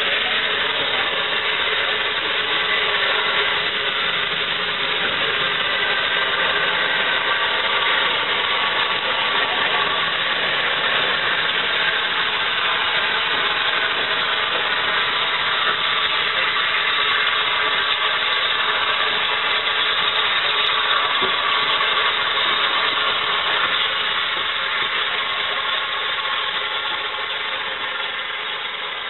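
Steady hiss of steam from the rebuilt Bulleid Battle of Britain class steam locomotive 34053 'Sir Keith Park' as it moves slowly tender-first, easing off near the end.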